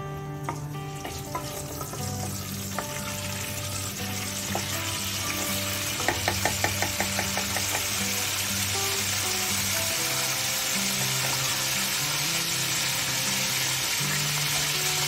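Mustard, nigella and cumin seeds sizzling in hot oil in a kadai for a tadka, stirred with a spatula. The sizzle builds and grows louder over the first several seconds, and about six seconds in there is a quick run of clicks. Soft background music plays throughout.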